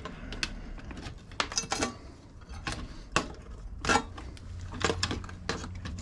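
Small metal and plastic scrap parts from a dismantled electronic device clinking and knocking as they are handled, a dozen or so irregular sharp clicks over a low steady hum.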